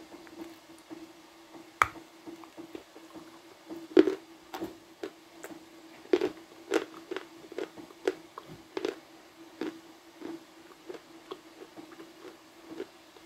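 A person chewing and crunching hard blue Uzbek edible clay: irregular sharp crunches and squishy chews, the loudest about four seconds in.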